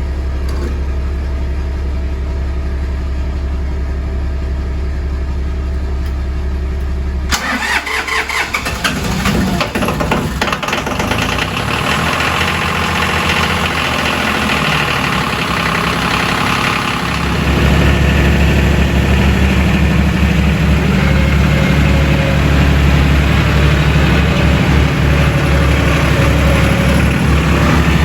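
An engine running. About seven seconds in the sound changes abruptly to a rougher, busier running, and from about seventeen seconds it is louder and steady.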